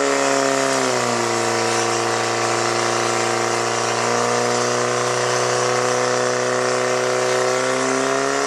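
Portable fire pump's engine running at high, steady revs while it pumps water through the hoses to the nozzles. Its pitch dips about a second in, then holds, rising a little near the end.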